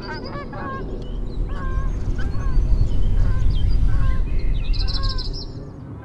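A flock of geese honking in many short, overlapping calls over a low rumble that builds to its loudest about halfway through and then eases off.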